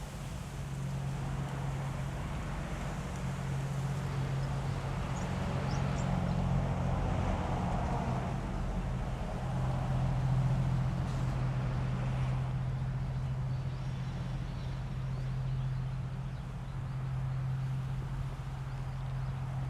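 Strong wind buffeting the action camera's microphone in a steady low rumble, with a broader rush that swells and fades in the middle.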